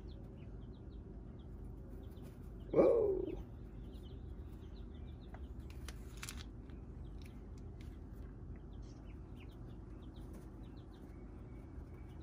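Chicks and ducklings peeping faintly and scattered over a steady low hum. About three seconds in there is one short, louder falling call, and about six seconds in a brief rustle.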